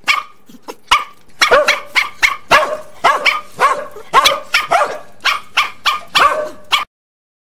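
A dog barking repeatedly. A few spaced barks come first, then a quick run of about three barks a second, which cuts off abruptly near the end.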